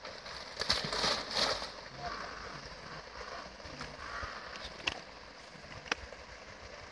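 Water splashing as a man moves waist-deep in a river, loudest about a second in and lasting about a second, over the steady rush of the flowing river. Two short sharp ticks come near the end.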